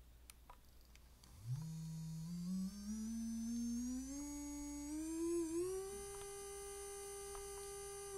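Portable electric nail drill motor switched on and run up with its speed wheel: a whine that starts about a second and a half in, climbs in steps as the speed rises to its top of 35,000 RPM, then holds steady.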